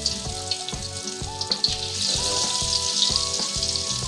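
Battered pieces of beef lung just dropped into hot oil in a small wok, sizzling hard with scattered pops. Background music with a steady beat plays underneath.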